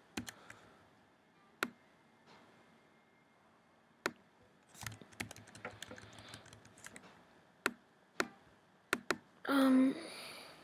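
Scattered single clicks of a computer keyboard and mouse, with a brief vocal sound about a second before the end.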